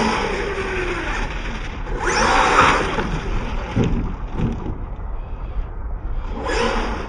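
Electric RC truck's motor whining, its pitch rising and falling as the truck speeds up and slows on the track, with loud bursts of rushing noise about two seconds in and again near the end.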